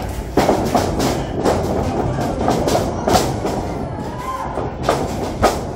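Sharp slaps and thuds of wrestling strikes and bodies landing on the ring, a series of hits through the moment, over the steady hubbub of a small crowd.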